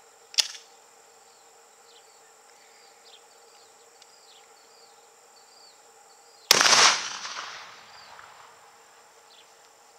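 A single 12-gauge shotgun shot about six and a half seconds in, its report echoing away over about a second. A short click comes shortly after the start, and a steady insect drone with faint repeated chirps runs underneath.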